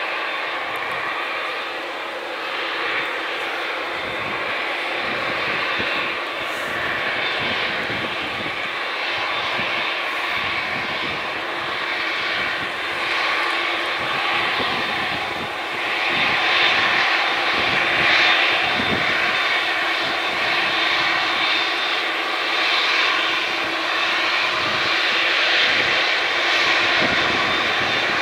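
Jet airliner engines of a departing aircraft running continuously: a steady rushing noise with a held whine, which grows louder about halfway through.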